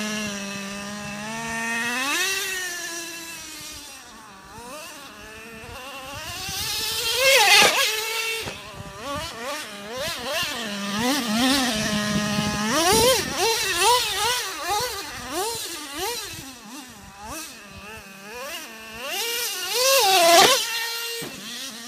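Traxxas Slayer Pro's two-stroke nitro engine (TRX 3.3) running in repeated throttle bursts that rise and fall in pitch, dropping back to a steady idle between them. It is loudest at two full-throttle passes, about 7 seconds in and about 20 seconds in.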